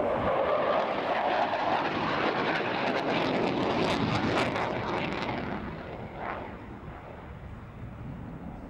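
Panavia Tornado's twin RB199 turbofans roaring past, loud for about five seconds with a crackle at its peak, then fading as the jet moves away.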